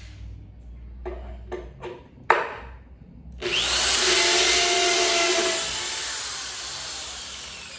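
A few light knocks and one sharp tap, then a power drill starts with a rising whine and runs for several seconds boring into wood, slowly fading near the end.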